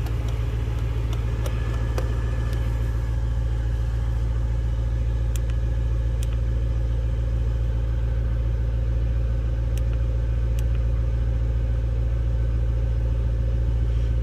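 Supercharged BMW E92 M3's S65 V8 idling steadily with a low, even rumble, and a few faint clicks on top. It runs despite a fuel pressure regulator 'control circuit low' fault code that comes straight back after clearing.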